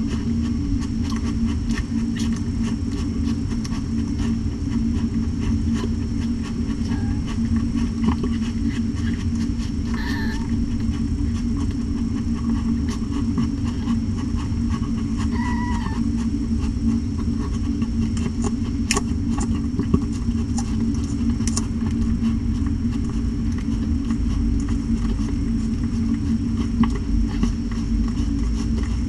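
A steady low hum runs underneath throughout. About ten and fifteen seconds in come two brief, high squeaks from newborn kittens at the nursing mother cat.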